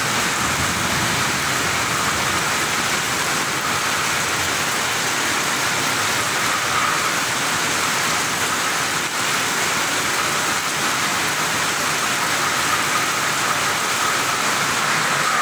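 Steady rain falling in a thunderstorm: an even, unbroken hiss.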